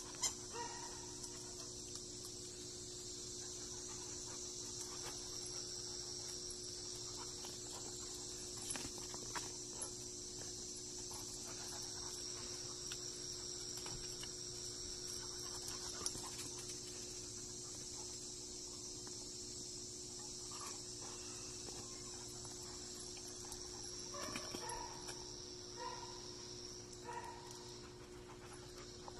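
Two dogs playing, with scattered light clicks and a few short dog vocalisations near the end, over a steady high chirring of insects and a low steady hum.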